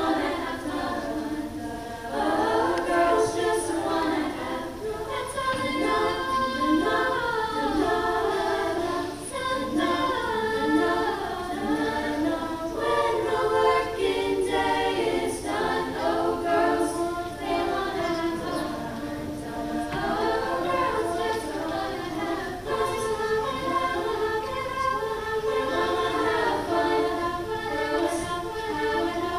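High school choir singing a cappella, holding sustained chords in several voice parts.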